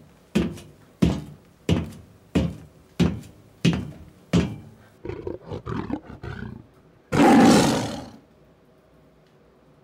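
A run of even, heavy thuds, about three every two seconds, followed by a few softer irregular sounds. About seven seconds in comes one loud, rough dinosaur-style roar lasting about a second.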